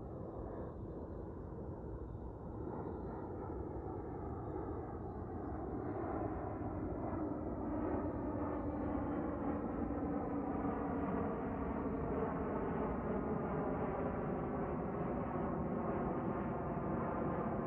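A small jet with tail-mounted engines flies overhead. Its turbofans make a steady rumble that grows louder, with a whine that slowly falls in pitch as it passes.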